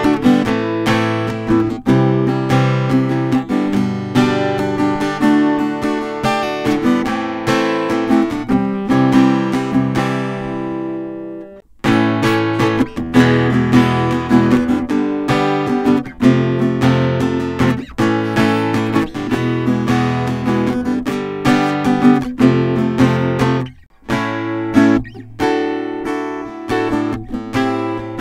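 Cort CE304T acoustic guitar played in chords, recorded unprocessed with no EQ or mixing. About a third of the way in, one chord is left to ring and fades out. There is a brief gap just after that and another near the end.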